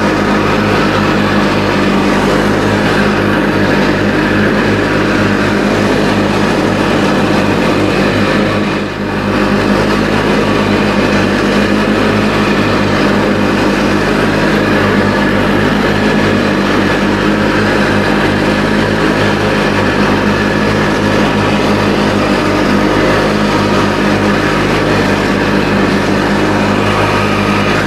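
Riding lawn tractor's engine running steadily while mowing, with a brief dip in level about nine seconds in.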